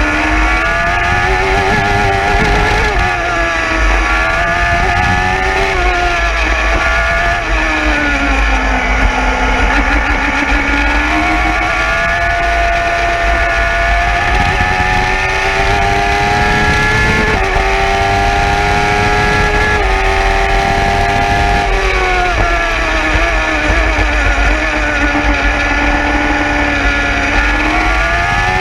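Engine of an Elkmann Performer single-seater race car heard from the cockpit at racing speed, its revs climbing through the gears and dropping away under braking several times.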